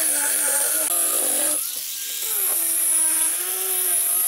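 Electric angle grinder with a sanding disc running against wooden drawer fronts: a steady motor whine over the hiss of abrasion. Its pitch and loudness dip briefly around the middle, then come back up.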